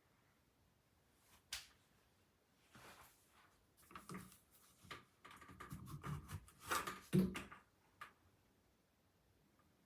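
Faint scattered clicks, knocks and rustles in a small room, with a denser cluster about halfway through.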